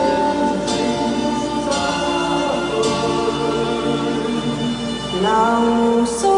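Choir singing long held notes.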